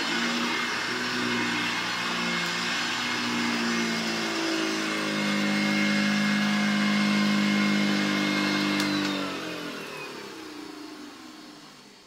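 1958 Hoover Junior 1334 upright vacuum cleaner running over carpet with a steady motor hum and whine. About nine seconds in, it is switched off and the motor winds down, its pitch falling as the sound fades.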